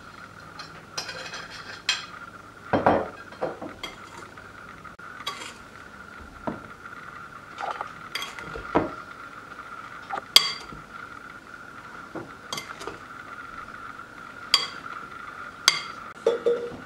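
Kitchen utensils knocking and clinking against a dish at irregular intervals, the loudest knock about ten seconds in, over a steady faint high tone.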